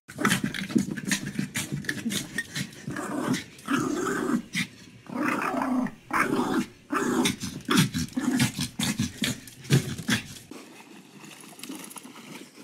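Small dog growling over and over in play, with clicks and knocks as it scrabbles about; the growls stop about ten and a half seconds in.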